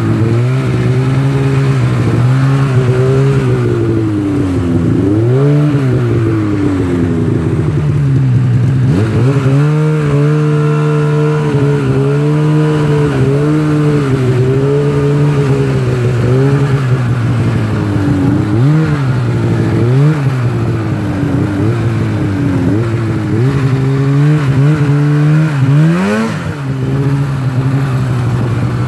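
Snowmobile engine running as the sled travels. Its pitch drops and climbs again repeatedly as the throttle is eased and reopened, with a sharp rise in revs near the end.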